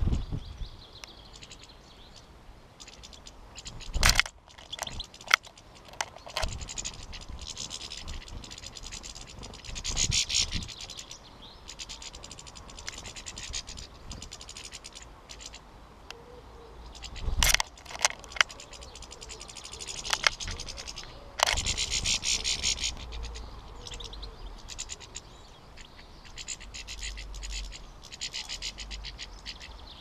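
European goldfinches twittering in rapid, buzzy trills at a seed feeder. A few sharp knocks stand out, the loudest sounds, as the birds land on and peck at the feeder.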